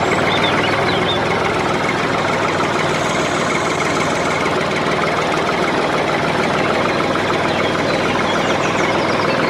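A small motor running steadily, a dense even mechanical noise with a fast flutter.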